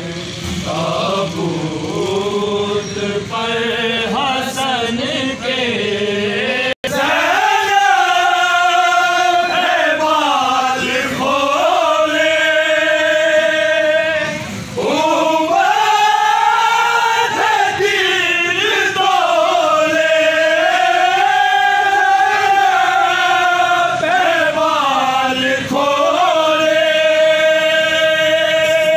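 A crowd of men chanting a Shia mourning lament (soz/noha) together, a slow melody on long held notes. The sound cuts out for an instant about seven seconds in.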